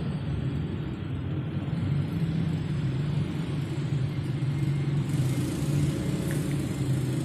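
A low, steady motor rumble.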